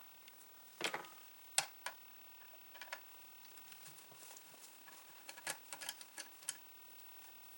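Irregular light clicks and taps of small screws and hard parts being picked up and set down on a work table, with a loud sharp click about a second and a half in and a quick run of clicks near the end.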